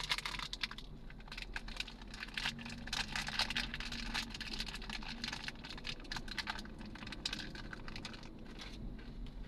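Rapid, irregular clicking and tapping over a steady low hum in a vehicle cabin; it stops shortly before the end.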